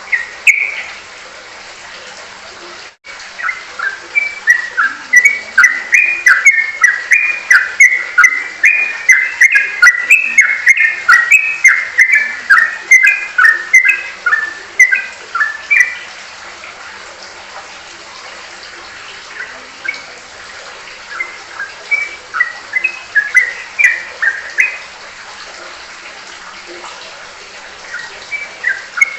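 Sooty-headed bulbul singing a fast run of short whistled notes, about three a second, for some twelve seconds. It pauses, then resumes in shorter bursts, over a steady background hiss.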